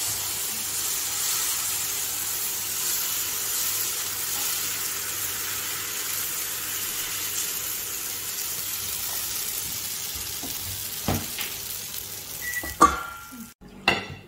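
Thosai batter sizzling steadily on a hot cast-iron tawa as it is poured and spread in circles with a ladle. A few sharp knocks and clinks come near the end.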